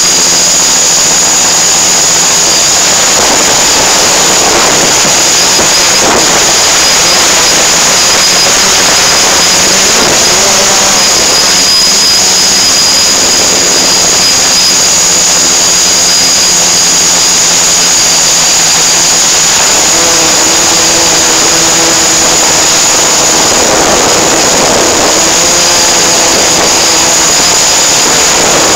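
Loud, steady machine drone: a dense rushing noise with two high whining tones over it, and a lower hum whose pitch shifts about twenty seconds in.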